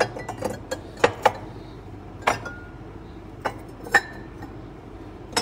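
Ceramic mugs clinking and knocking against each other and the shelf as they are shifted by hand. About ten sharp, irregular clinks, a few of them ringing briefly.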